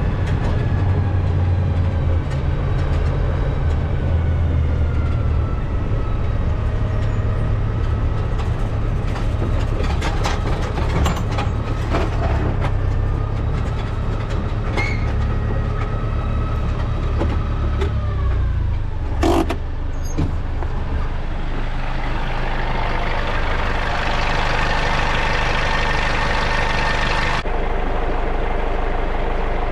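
Farm tractor engine running steadily, heard from the cab, with scattered clicks and one sharp knock about two-thirds of the way through. In the last third a louder rushing noise builds over the engine, and the sound changes abruptly near the end.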